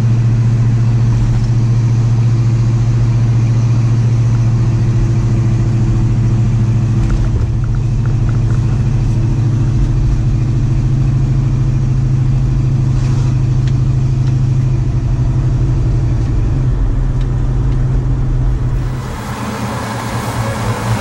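A 1966 Dodge Dart GT's engine running at a steady cruise with road noise, heard from inside the cabin as a loud, even drone. Near the end it cuts to quieter outdoor sound.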